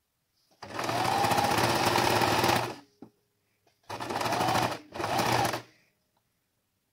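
Electric sewing machine stitching fabric in three runs: one of about two seconds, then two short runs in quick succession near the end, each starting and stopping abruptly, the motor's pitch rising and easing off within each run.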